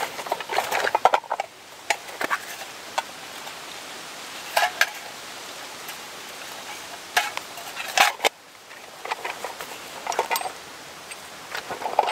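Hands rummaging in a drawstring leather pouch on a canvas backpack: rustling and scattered clicks and taps as small items inside are moved about, in short clusters.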